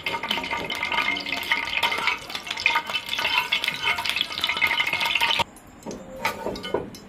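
A small amount of oil sizzling and crackling in a hot nonstick frying pan as a metal spatula spreads it. The pan is hot and the oil is sparse, so it spits. The sizzle cuts off abruptly about five seconds in, leaving a few separate clicks.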